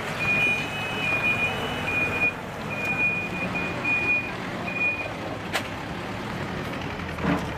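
Reversing alarm of heavy earthmoving machinery beeping repeatedly and somewhat unevenly, over a diesel engine running. The beeping stops about five seconds in.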